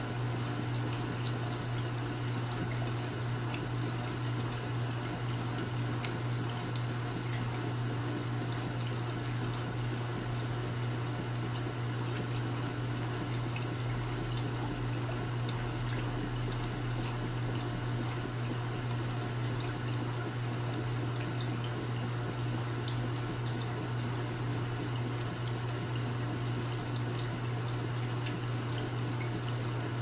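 Vintage General Electric Spacemaker portable top-load washing machine agitating a load of clothes in water at its slower, gentle wash speed: water sloshing over a steady low motor hum.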